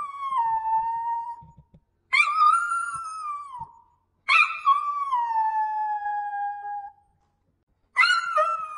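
A small dog howling: long drawn-out howls that each start high and slide down in pitch, one ending early on, two more full howls with short gaps between, and another beginning near the end.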